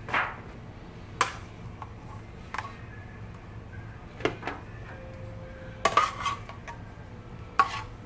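A spoon clinking and scraping against a metal pan as sauced chicken wings are spooned out into a foil pan. There are several separate sharp clinks, with a quick cluster of them about six seconds in.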